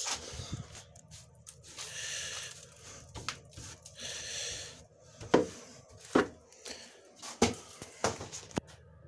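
Hands working among tools and parts on a workbench: rustling and scraping at first, then from about halfway on several sharp knocks of hard objects being set down or tapped together. The first knock is the loudest.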